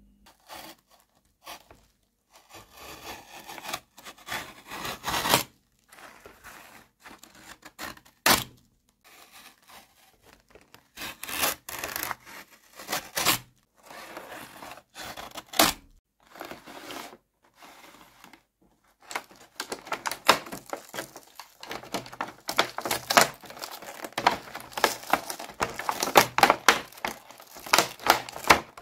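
Utility knife blade cutting and scraping along a plastic blister pack and its cardboard backing, in irregular strokes with a few sharp snaps. The strokes come close together near the end.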